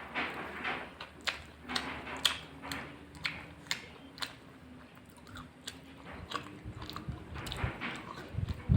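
Close-miked chewing of rice and curry: irregular wet mouth smacks and clicks, a few to a second.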